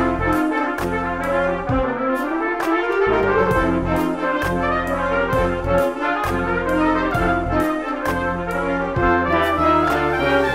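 High school marching band playing a fast, driving passage, trumpets and trombones carrying the tune over sharp percussion hits that fall in a steady, quick rhythm.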